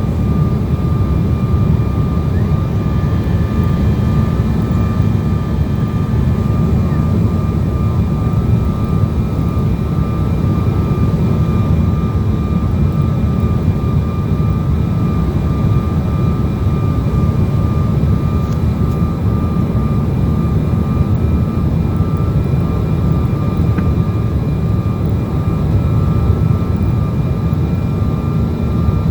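Airliner cabin noise during the approach: a steady low roar of jet engines and rushing air, with a faint steady high whine on top.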